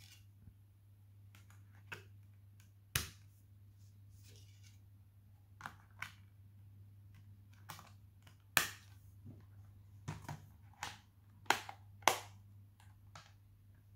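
Blu-ray discs being pressed back onto the plastic hubs of a steelbook case's disc tray and the metal case closed: a scattered series of sharp plastic clicks and snaps, the loudest near the end.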